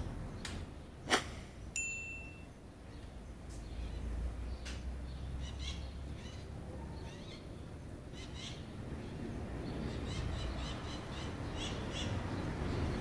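Handling clicks from a slingshot rifle rigged with a fishing reel: one sharp click about a second in and a second, ringing click just after. Short bird chirps come and go in the background.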